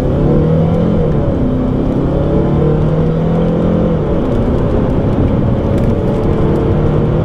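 2013 Hyundai Sonata Hybrid's 2.4-litre four-cylinder engine pulling hard under full-throttle acceleration. Its note climbs and then drops back a couple of times as the six-speed automatic shifts up.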